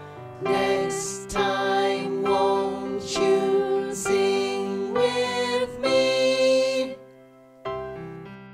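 Children's song music with keyboard. Near the end it drops away, and a softer, sparser keyboard melody begins.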